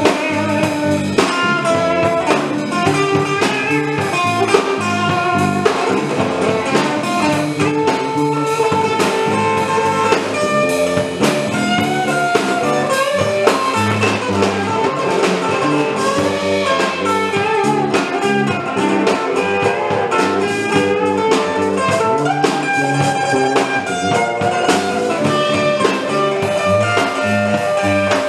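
Blues band playing live: electric guitar and bass guitar over a drum kit, a steady, full sound throughout.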